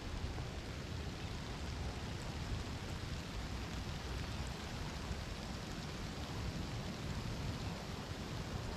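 Steady outdoor wind noise: an even hiss with a low rumble on the microphone.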